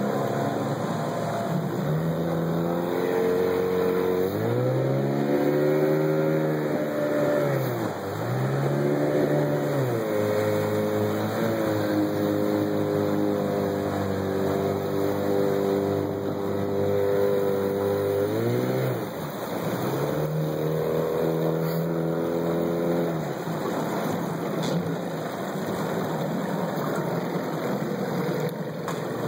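Outboard boat motor running and being throttled up and back several times. Its pitch climbs, holds, dips briefly, holds again, drops, then rises once more and settles to a lower, weaker run near the end, over a steady rush of water and wind.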